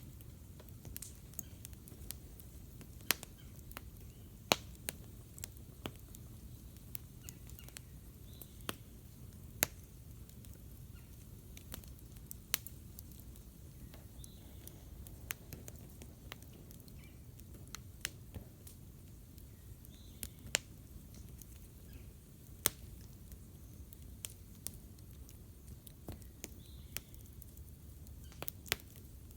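Campfire burning, wood crackling and popping in irregular sharp snaps, a few of them loud, over a low steady rumble.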